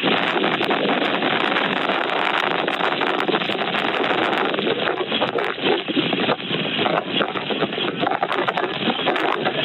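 Strong wind rushing and gusting over the microphone, a steady loud roar of noise with frequent crackling buffets.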